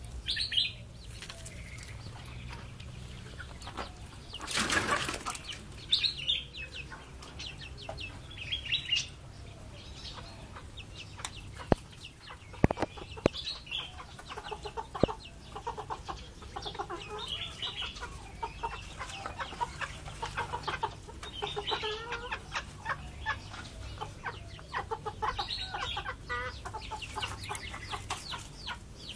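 Backyard chickens clucking, with short high peeps and scattered sharp ticks, and a brief rustling burst about five seconds in.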